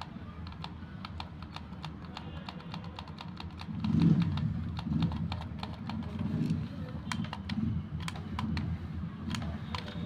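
Toy remote-control cars stuck on artificial grass are being driven: irregular light clicking, joined from about four seconds in by short, low buzzing bursts as their small motors strain without getting the cars moving.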